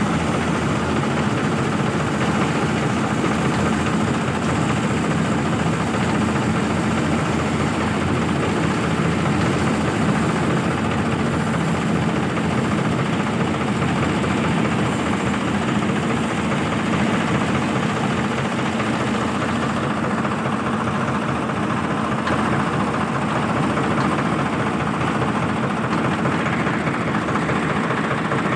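Yanmar combine harvester's diesel engine and machinery running steadily while it harvests paddy.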